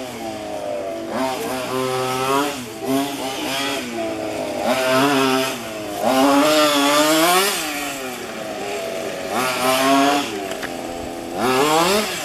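Small two-stroke petrol engine of a 1:5-scale FG radio-controlled car, its pitch rising and falling over and over as it accelerates and slows.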